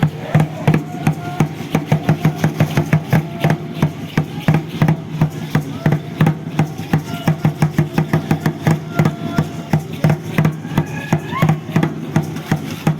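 Deep drum beaten in a fast, steady rhythm of about four to five strokes a second, as in Aztec-style (Mexica) ceremonial dance drumming.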